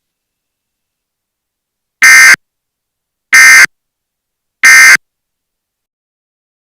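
Emergency Alert System SAME header: three identical short bursts of digital data tones, about a second and a third apart, beginning about two seconds in. This is the coded header that opens a new alert broadcast.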